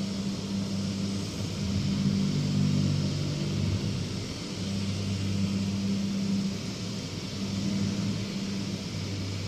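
A steady low hum with an even hiss: background machinery noise such as air conditioning, with no other distinct event.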